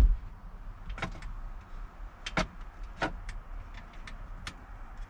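Clicks and knocks of hand work on a pickup's steering column while the tilt mechanism is unscrewed: one loud knock at the start, then scattered sharp clicks about every half second to second, over a low steady rumble.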